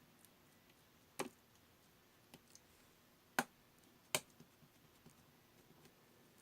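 Pearl slime being handled, giving a few sharp, separate clicks: three clear ones about a second, three seconds and four seconds in, with two faint ones between.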